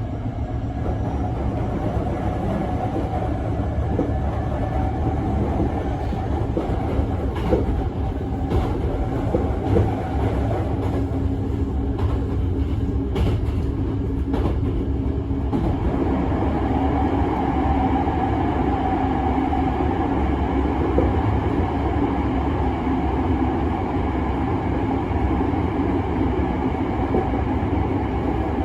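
Hankyu 1300 series commuter train running between stations, heard from inside the car. The wheels and track give a steady rumble, with a run of clicks from rail joints in the middle. Steady tones from the Toyo IGBT-VVVF inverter and traction motors run under it, and their pitch changes about halfway through. This unit is known for its unusual drive sound.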